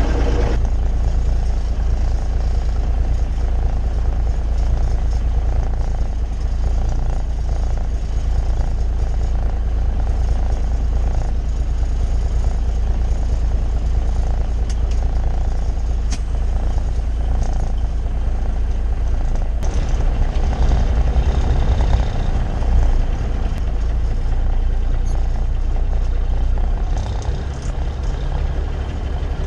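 Peterbilt 352 cabover's diesel engine running, heard from inside the cab as a steady low rumble.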